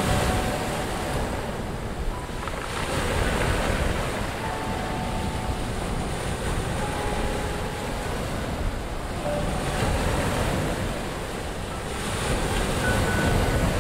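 Ocean surf washing onto a sandy beach, swelling and easing every few seconds, with a few faint short tones now and then.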